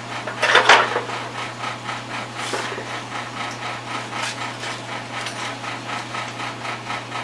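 Sheet-metal cover of a fluorescent light fixture clattering as it is pushed into place, loudest about half a second in, over a steady hum with faint regular ticking.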